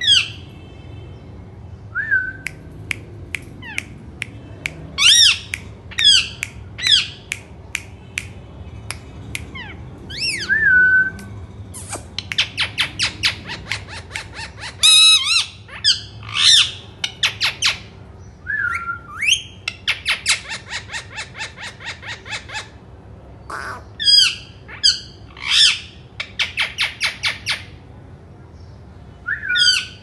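Indian ringneck parakeets screeching: sharp high squawks in short bursts, with long runs of quick repeated calls, about five a second, through the middle.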